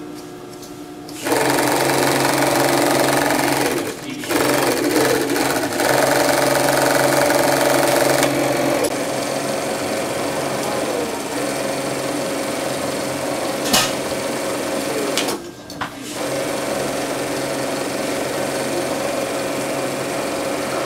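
Maier blindstitch sewing machine with a Racing PW belt puller running steadily as it stitches fabric. It starts about a second in and stops briefly twice, once near 4 s and once just after a single sharp click near the middle.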